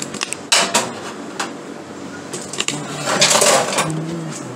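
Metal pots and utensils clattering at a stainless kitchen sink: a few sharp knocks, then a short rush of noise about three seconds in.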